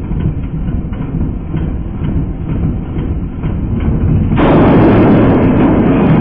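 Brushed electric motor spinning a record in the arena, running with a loud, rough, rattling rumble that builds steadily. About four seconds in the sound suddenly turns louder and harsher and stays that way.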